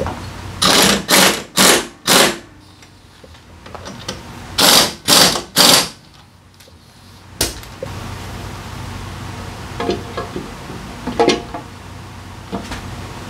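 Pneumatic impact wrench hammering the pulley nuts of a Honda Forza 350's belt drive tight in short bursts: four quick bursts, a pause, then three more. Near the end come a few lighter metal knocks as the drivetrain cover is fitted.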